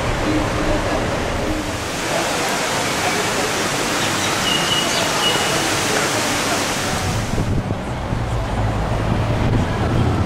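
Steady rushing noise of wind buffeting the camera microphone, strongest from about two to seven and a half seconds in, over a low traffic rumble.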